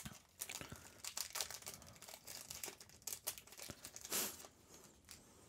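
Foil wrapper of a Magic: The Gathering Strixhaven draft booster pack crinkling and tearing as it is pulled open by hand: a run of light, irregular crackles, with a louder crackle about four seconds in.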